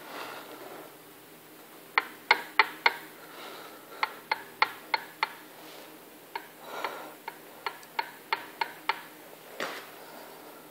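Nissan R200 open differential (4.36 ratio) with its ring gear turned slowly by hand: runs of sharp clicks, about three a second, in groups of four or five, with a soft scrape between runs. The owner takes the clicks for the ring and pinion teeth clicking as they meet, and is unsure whether that is normal.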